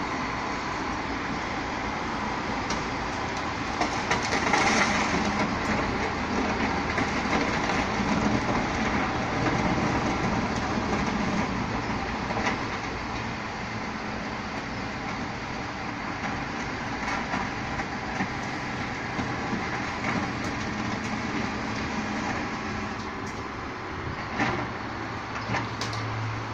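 Rear-loading garbage truck running steadily, its engine and loading machinery louder for several seconds about four seconds in, with a few knocks and clatters as bulky waste is thrown into the hopper.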